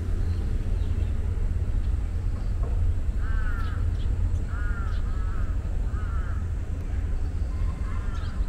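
A crow cawing repeatedly, short calls about one a second through the second half, over a steady low rumble.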